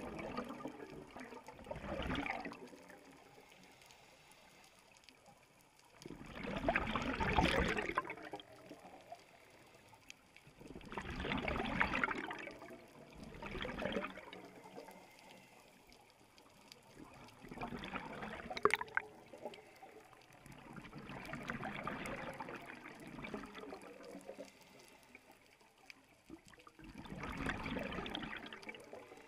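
Scuba regulator exhaust bubbles underwater, a gurgling rush with each exhaled breath, coming in about seven bursts a few seconds apart with quieter gaps between.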